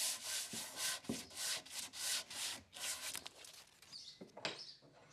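A small carved wooden figure being sanded by hand: even back-and-forth rubbing strokes, about three to four a second, that turn sparser and fainter after about three seconds.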